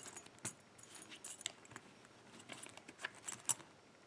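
Scattered light clicks and metallic clinks from a metal padlock being handled as its rubber cover is pulled off.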